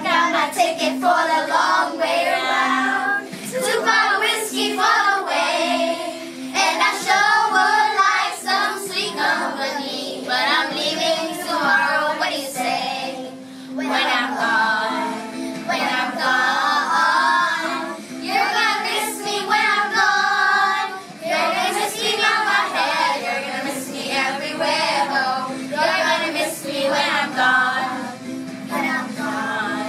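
A small group of children singing a song together, one phrase after another with brief breaths between.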